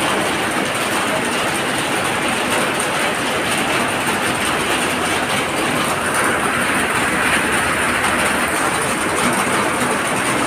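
Muddy floodwater rushing over a road in heavy rain: a steady, loud, unbroken rush of water.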